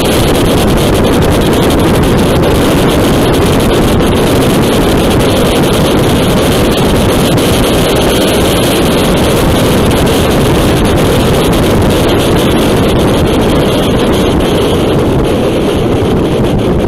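Steady rush of wind over the microphone of a Yamaha Tracer motorcycle at highway speed, about 130 km/h, with the bike's running and tyre noise mixed in. It eases slightly near the end as the bike slows.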